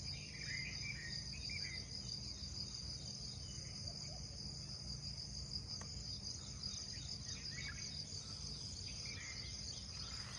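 Steady, high-pitched trilling of an outdoor insect chorus, with a few short bird chirps about half a second in and again near the end.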